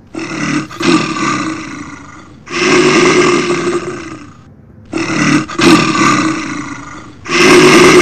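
Tyrannosaurus rex roar sound effect: four loud, long roars in a row, each about two seconds.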